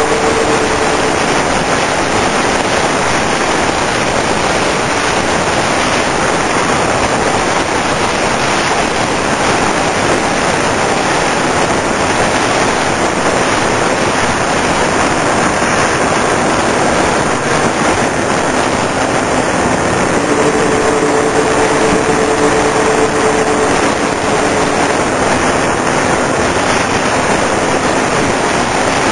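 Airflow and wind rushing over the onboard camera of a Multiplex TwinStar II RC plane in flight: a steady, loud hiss. The hum of its twin brushless electric motors and propellers shows through at the start and again for a few seconds about two-thirds of the way in.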